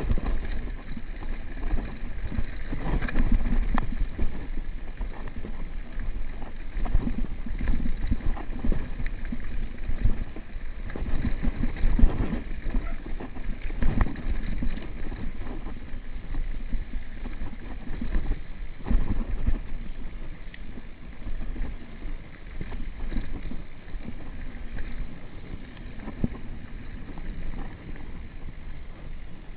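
Mountain bike rolling fast over a rough dirt trail: wind rushing over the microphone, tyre noise on dirt and loose stones, and frequent uneven knocks and rattles as the bike jolts over bumps.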